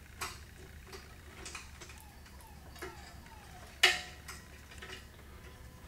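Small scattered clicks and taps of metal carburetor linkage and parts being wiggled loose by hand on a Honda GCV160 small engine, with one sharp, louder click nearly four seconds in and a few faint squeaks.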